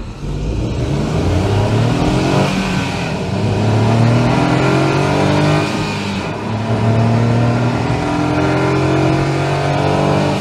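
Honda S660's mid-mounted 658cc turbocharged three-cylinder engine accelerating hard through the gears, heard from inside the cabin: the note rises in pitch, drops at an upshift about 3 seconds in and again about 6 seconds in, then climbs once more.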